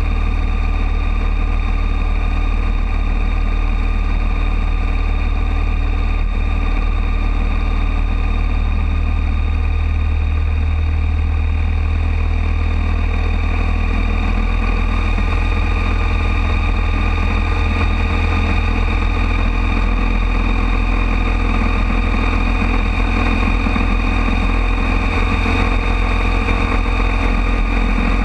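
Harley-Davidson Deluxe's V-twin engine running steadily while the motorcycle cruises at road speed, heard alongside wind and road noise.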